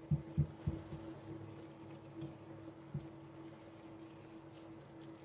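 A spatula stirring ground beef and tomato in a stainless steel frying pan, giving a few soft low knocks in the first second and one more about three seconds in, over a steady low hum.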